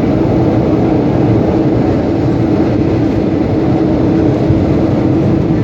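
Boeing 757-200 airliner in flight, a steady drone of engines and airflow with a constant hum running through it.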